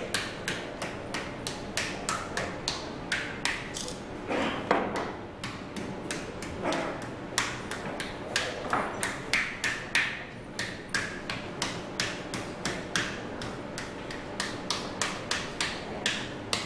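A flat wooden paddle beating partly dried clay slabs, a steady run of sharp slaps about two to three a second. This is the clay being paddled as it stiffens.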